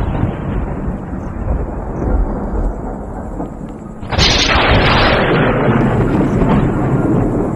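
Thunder: a low rumble fading away, then about four seconds in a sudden loud crack of thunder that rolls on as a long rumble.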